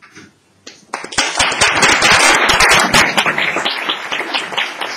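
Audience applauding: dense clapping starts abruptly about a second in, is loudest in the middle and thins a little towards the end, marking the close of a talk.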